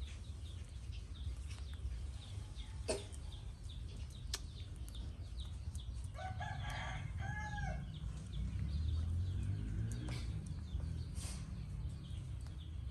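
A rooster crows once, about halfway through, over a steady low rumble and scattered faint clicks.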